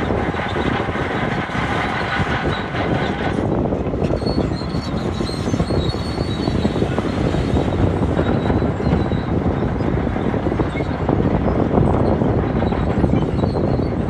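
Shantui DH17-C2 crawler bulldozer working close by: its diesel engine running under load, with the steady clatter of its steel tracks and rock grinding under the blade as it pushes stone forward.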